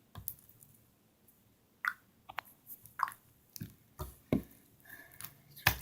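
Thick, glossy milk slime squished and poked by hand, giving a string of small, irregularly spaced wet clicks and pops, with a louder crack near the end.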